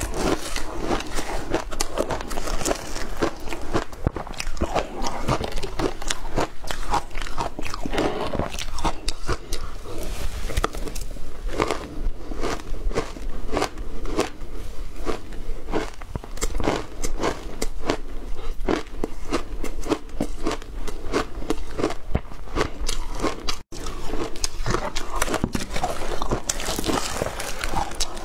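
Close-miked crunching and chewing of mouthfuls of shaved ice dusted with matcha powder, mixed with a metal spoon scraping and digging into ice in a clear pot. A dense, continuous run of crisp cracks, broken once by a momentary gap about two-thirds of the way through.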